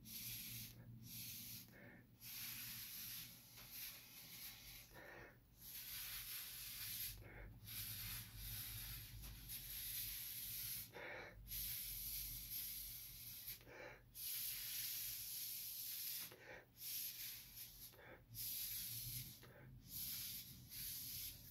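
Air hissing out of a thin hose blown onto a wet ink painting, stopping briefly every one to three seconds as the flow is cut and restarted.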